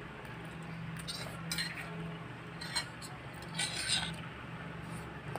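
Forks and spoons scraping and clinking on plates in a few short, scattered strokes while eating, the longest near the end, over a steady low hum.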